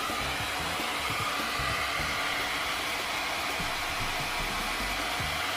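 Hair dryer running steadily, a continuous even blow of air.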